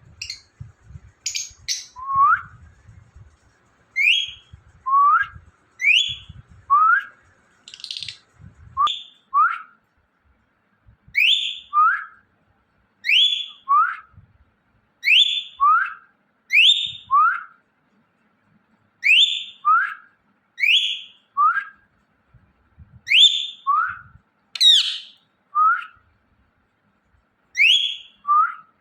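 Indian ringneck parrot whistling a repeated two-note call: a short rising whistle followed by a short falling one, about a note a second, in runs with brief pauses.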